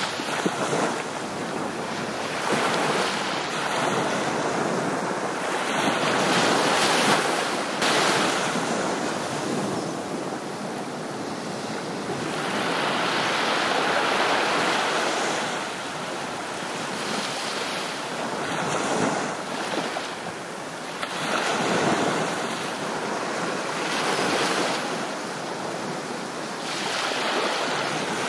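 Ocean surf: waves washing in and drawing back, the rush swelling and fading every few seconds.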